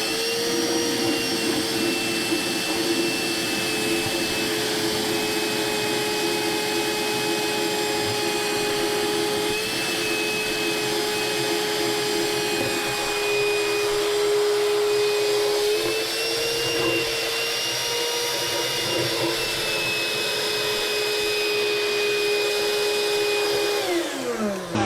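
Wet/dry vacuum motor running steadily with a constant whine while sucking the water out of a toilet tank; the pitch lifts briefly around the middle, and near the end it is switched off and winds down.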